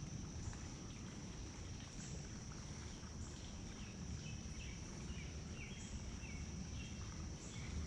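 Creekside ambience: steady rushing of a flowing creek, a constant high insect drone, and a run of short falling bird chirps in the middle.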